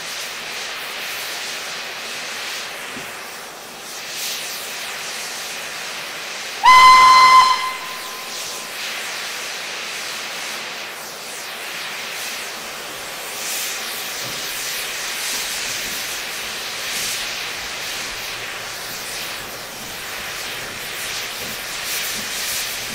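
Steam hissing steadily from a Southern Railway S15 4-6-0 steam locomotive, No. 847, standing in steam. About seven seconds in, the locomotive's steam whistle gives one short, loud blast lasting about a second.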